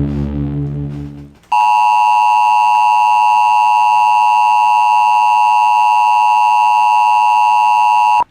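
Background music fading out, then the Emergency Alert System attention signal: a loud, steady two-tone electronic tone held for about seven seconds before it cuts off suddenly.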